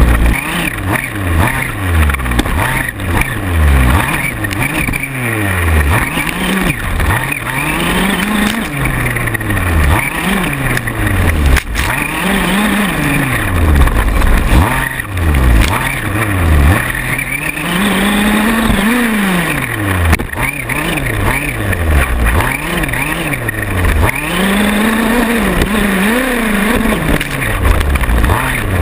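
Gas-powered 1/5-scale RC buggy's small two-stroke engine, heard from on board, revving up and dropping back again and again as it is driven around the track. A few sharp knocks come through along the way.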